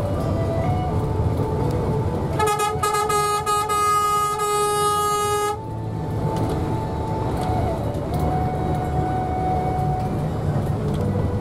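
A vehicle horn sounds once in a single steady tone held for about three seconds, then cuts off suddenly. It plays over the low rumble of the bus driving on the road.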